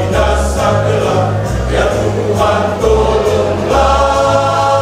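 Church choir singing a held, multi-voiced hymn phrase, with sustained low bass notes underneath that change every second or so.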